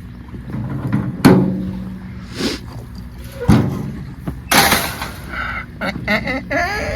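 Gate or pen door banging and rattling: several sharp knocks, the loudest about a second in and ringing on briefly. A rising pitched sound starts near the end.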